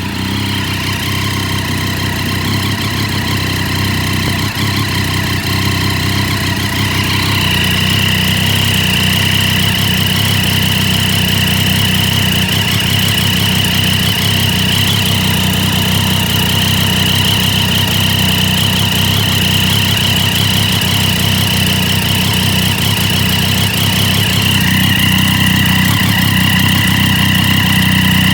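Triumph Daytona 675's three-cylinder engine idling steadily, with a steady high-pitched tone over it that grows stronger about seven seconds in. The owner suspects an exhaust leak.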